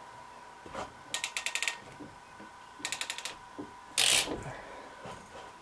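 PEX clamp tool ratcheting as it crimps a clamp onto PEX tubing: a quick run of rapid clicks, a second shorter run, then a louder short snap about four seconds in.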